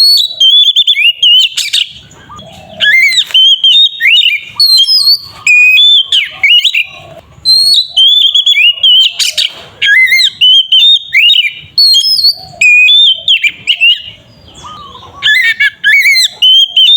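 Oriental magpie-robin (kacer) singing loudly in a long unbroken run of rapid, varied whistled phrases, sweeping up and down with only brief gaps. This is the continuous 'ngeplong' song of an excited bird.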